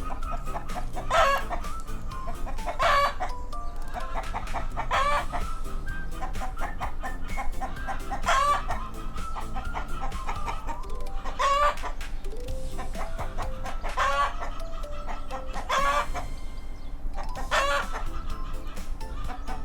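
Chickens clucking, with short calls repeating every two to three seconds over background music.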